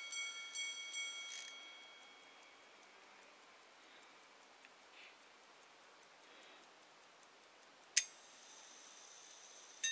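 Pocket-watch minute repeater's hammers striking its steel gongs a few more times, the chiming stopping about a second and a half in and the ring fading away. The watch then ticks faintly, until a single sharp click near the end, followed by a faint steady whir.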